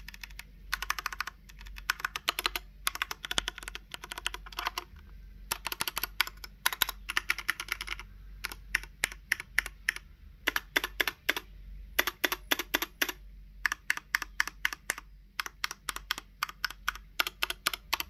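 iKBC Poker II 60% mechanical keyboard with Cherry MX Red switches and PBT keycaps being typed on in quick runs of keystrokes broken by short pauses.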